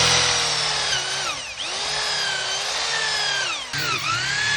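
Electric drill running under load into hardwood, its motor whine sagging and recovering several times as the bit bites into the wood.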